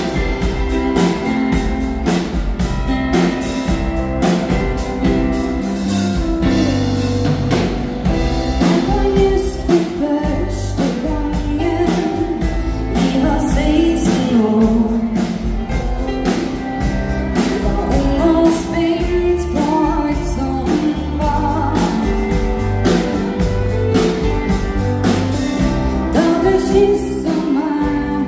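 Live Norwegian dance band (danseband) playing, with a woman singing lead over drums, keyboard and guitars at a steady beat.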